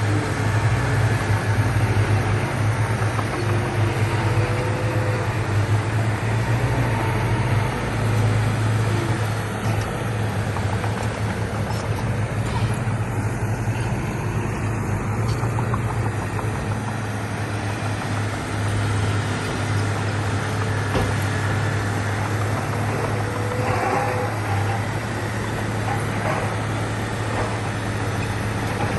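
Heavy diesel engine of earthmoving machinery running steadily, a continuous low drone that eases slightly about a third of the way in.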